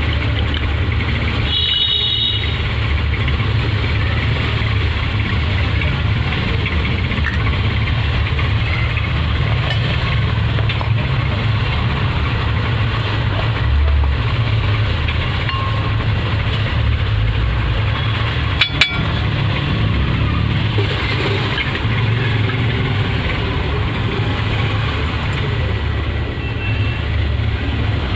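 Steady low engine-like rumble, with a short high-pitched beep about two seconds in and a sharp click a little past halfway.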